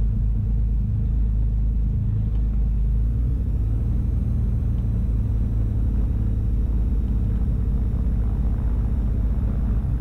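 Cockpit drone of a Cessna 310's two piston engines running at low power as the twin taxis onto the runway: a steady, low rumble.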